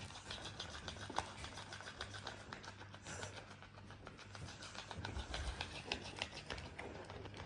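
Alaskan malamute mouthing and chewing a fabric toy fish: soft, irregular clicks and rustles over a faint steady low hum.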